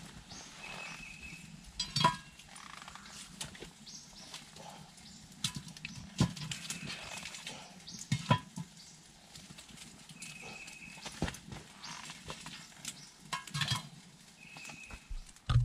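Scattered metal clanks and scrapes as a cast-iron Dutch oven is set on a campfire grate and hot coals are piled onto its lid, with a few sharp knocks standing out about two, six and eight seconds in.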